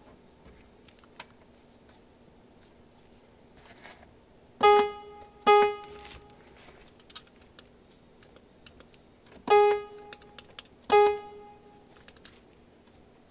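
Roland SC-88 Sound Canvas sound module sounding its 'Piano 1' preset: single preview notes of the same pitch, played four times, two close together about a third of the way in and two more later, each ringing out for about a second. Faint clicks from the knob come between the notes.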